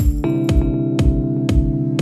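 Background electronic music: a steady kick drum about twice a second under held synthesizer chords, with a chord change just after the start.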